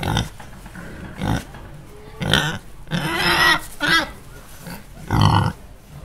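Domestic pig grunting: a run of about six separate grunts and calls, the longest in the middle and a loud short one near the end.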